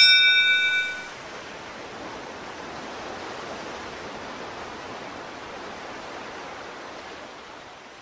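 A bright chime rings out and dies away over the first second. Then a steady rushing noise of sea surf goes on, fading slightly near the end.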